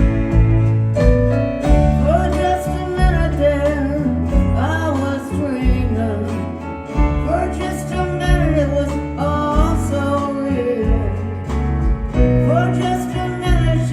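Live rock band playing a song: a lead vocal sung over guitar, sustained bass notes and steady drum hits.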